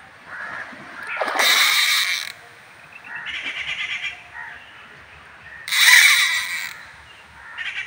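Spinning fishing reel buzzing in four bursts of about a second each, rapid clicking, while a hooked fish is played on the line.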